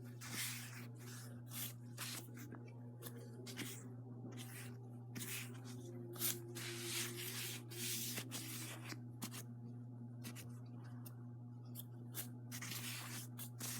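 Toilet paper wiping and rubbing over an iPad's screen in many short, irregular strokes, over a steady low hum.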